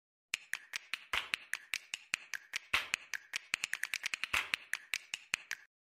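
Intro sound effect of quick, dry finger-snap-like clicks, about five a second, with a heavier, noisier hit about every second and a half; it stops shortly before the end.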